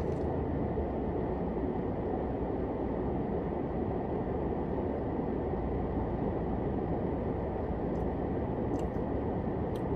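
Steady low rumble and hiss inside a car's cabin, with a few faint clicks near the end.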